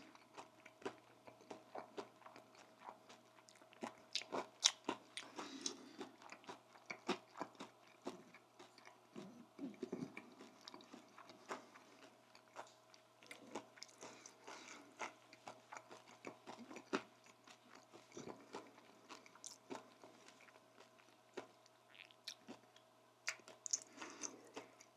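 Close-miked chewing and biting: irregular crunches, moist mouth clicks and lip smacks.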